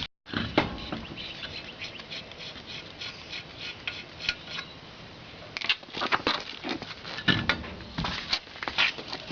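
Irregular metallic clicks and knocks, thicker in the second half, from tools and wheel hardware being handled during a car wheel change.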